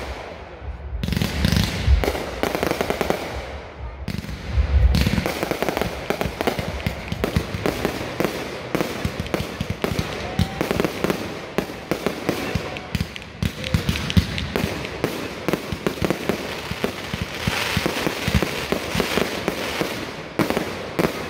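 Fireworks display: aerial shells bursting, with deep booms in the first few seconds, then a dense, continuous run of rapid bangs and crackle.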